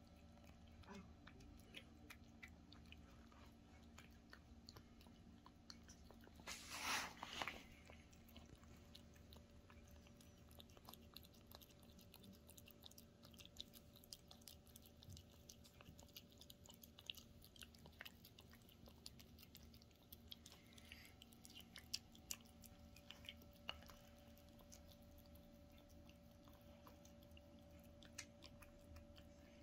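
Domestic cat eating wet canned food from a stainless steel dish, with faint, quick wet smacking and chewing clicks throughout. A brief louder noise about seven seconds in.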